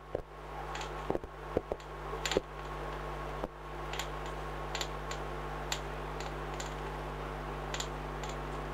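Marker pen tapping and stroking on a whiteboard as tick marks are drawn: short, faint clicks about once a second, over a steady low hum.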